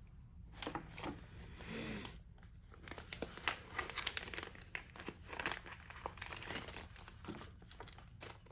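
Hands handling small parts, making irregular crinkling and rustling with many small clicks, starting about half a second in.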